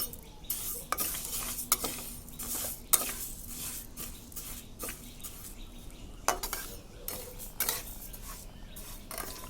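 A spatula scraping and stirring dry moong dal around a hot kadai, in repeated irregular strokes about one or two a second: the lentils being dry-roasted without oil.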